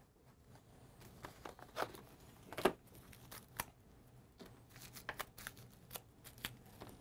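Faint, scattered rustling and crinkling with light clicks as a tie-dye kit's plastic packaging is opened and its contents handled.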